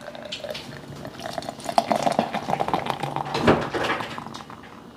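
Beer poured from a can into a glass: a steady run of splashing and crackling fizz as the foam rises, with one louder knock about three and a half seconds in.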